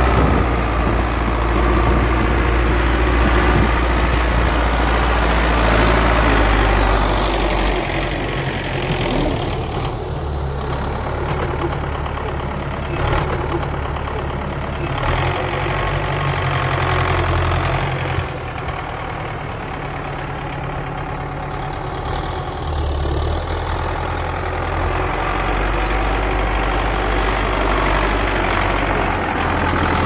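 Belarus 820 tractor's four-cylinder diesel engine running steadily while pulling a mounted plough, its note shifting in pitch a few times as the load changes.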